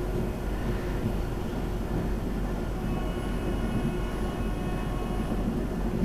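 Pesa 218Mc diesel train running at speed, heard from aboard: a steady rumble of engine and running gear. A faint whine joins about halfway through.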